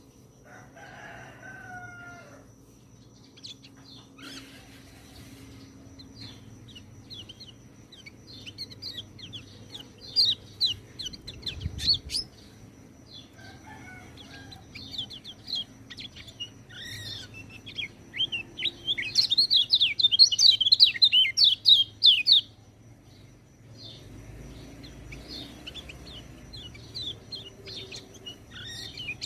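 A white-eye (pleci) singing: rapid, high-pitched chirping phrases in quick trills that grow into a loud, dense run of song about two-thirds of the way in. A fainter, lower call sounds near the start.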